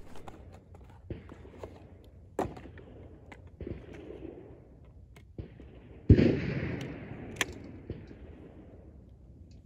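A 12-gauge over-under shotgun fires once about six seconds in, and the report rolls away over the next two seconds or so. Fainter knocks and clicks come before and after it.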